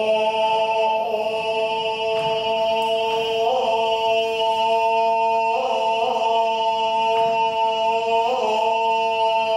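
Buddhist shōmyō chant: one long held chanted note that slides up into pitch and is sustained for about nine seconds, wavering slightly three times before breaking off at the end.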